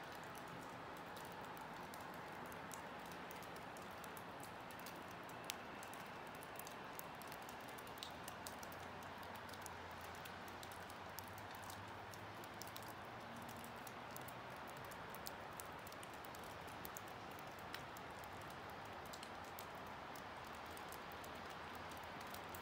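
Quiet outdoor ambience: a faint steady hiss with scattered light ticks and taps, the sharpest about five seconds in.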